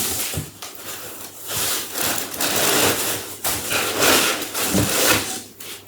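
Packaging being handled and pulled out of a cardboard box: repeated rubbing and scraping in several swells, with a few light knocks.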